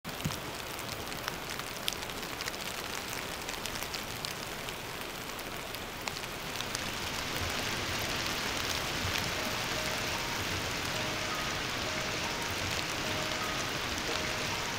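Summer rain shower falling on forest foliage: a steady patter with individual drops ticking close by, growing a little heavier about seven seconds in.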